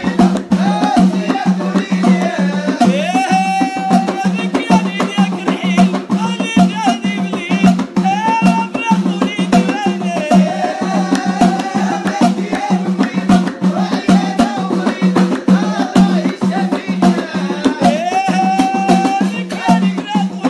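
A Moroccan song playing, with fast, dense hand percussion and rattles under a wavering, ornamented melody line.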